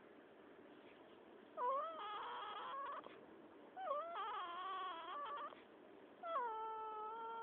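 Squeaky, whining snores: three long high-pitched tones, each wavering at the start and then holding steady, the last still going near the end.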